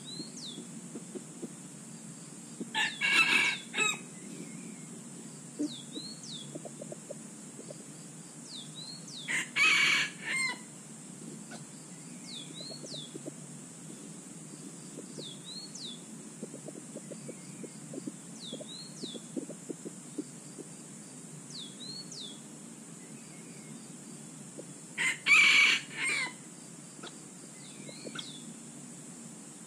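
A rooster crowing three times, short crows spaced several seconds apart. Between the crows there is a steady high-pitched hum, a short chirp repeating every two to three seconds, and low rustling.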